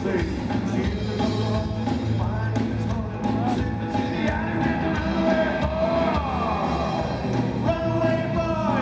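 Live rockabilly trio playing: electric guitar, upright bass and a small standing drum kit, with a man singing lead over them.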